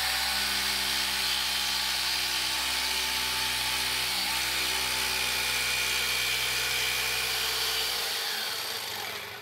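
Corded jigsaw running as it cuts into plywood along a marked line, a steady buzzing whine that winds down and stops near the end.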